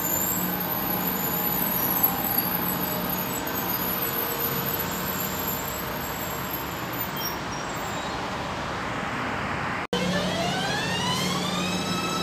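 Electric passenger train running out of the station, a steady rumble and hum that eases off as the train clears the platform. After a brief cut near the end, another electric train's traction motors whine, rising in pitch as it starts off, then holding steady.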